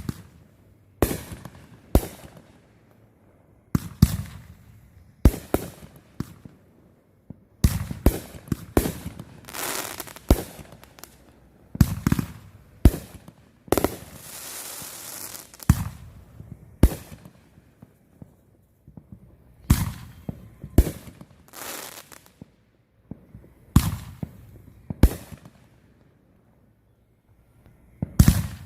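Fireworks going off: a series of sharp bangs at irregular intervals, some in quick clusters, each with a short echoing tail, and a few seconds of steady hiss about halfway through.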